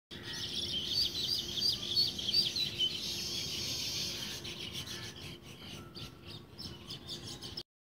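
Birds chirping: a run of short, high, repeated chirps, about three a second, then quieter scattered chirping over a faint steady hum, cutting off suddenly near the end.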